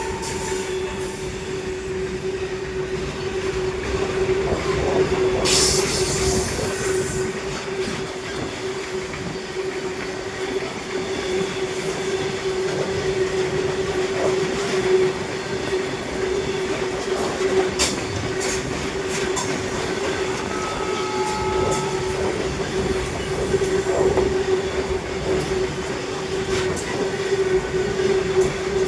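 Freight train behind a WAG-12 electric locomotive running past, wagons clattering over the rail joints under one steady, even whine, with scattered sharp clicks and knocks.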